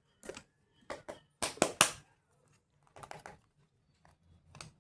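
Sharp clicks and taps of a makeup box and its products being handled, coming in short clusters, with the loudest run of clicks about a second and a half in.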